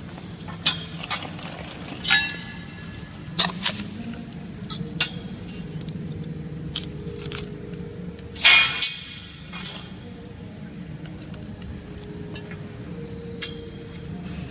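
Sharp metallic clinks and clanks of metal greenhouse arch tubes and screws being handled on a concrete floor, a handful of separate knocks with brief ringing, the loudest about eight and a half seconds in. A low steady hum runs underneath.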